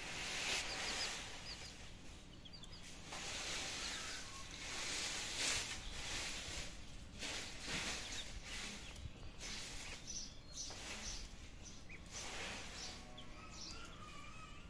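Ducklings peeping faintly now and then, short high chirps over a background noise that swells and fades.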